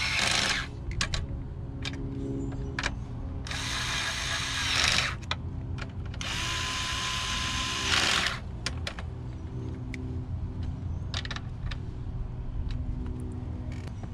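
Cordless driver spinning in three short runs as it drives the carburetor's bolts home, its clutch set low so it doesn't over-torque them. A few light clicks follow.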